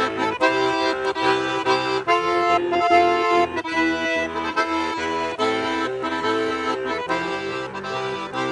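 Bayan (button accordion) playing an instrumental passage without singing: a melody over held chords, with bass notes changing in a steady rhythm.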